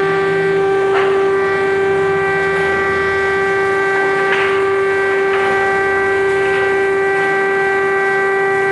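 Air-raid siren sounding a steady, unbroken tone with strong overtones, after winding up to full pitch.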